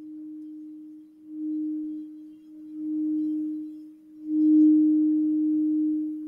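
Crystal singing bowl played with a mallet, giving one steady low tone that swells three times; the last swell, about four seconds in, is the loudest.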